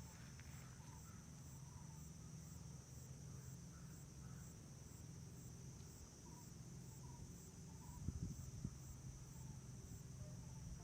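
Steady high-pitched chirring of insects, with faint short chirps of distant birds and a low steady hum underneath; a few low thumps near the end.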